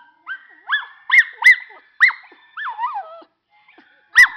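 Schnauzer 'singing': a string of short, high-pitched yelping howls, each rising and falling in pitch, with a longer call sliding down near three seconds, a brief pause, then one more loud yelp near the end.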